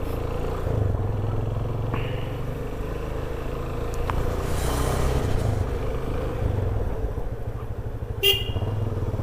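A motorcycle engine running steadily in street traffic, with a short horn toot near the end.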